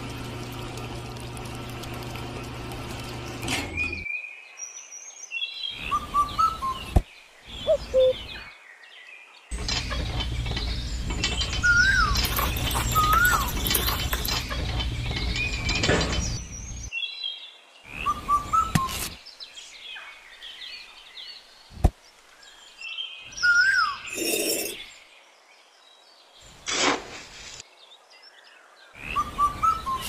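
A miniature model cement mixer's small electric motor hums steadily for the first few seconds and again for several seconds near the middle, with bird chirps and tweets between and over it, and a couple of sharp clicks.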